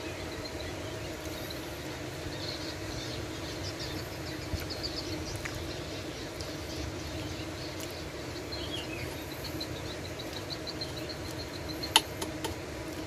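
Steady low hum with repeated high-pitched chirping over it, and a single sharp click about twelve seconds in.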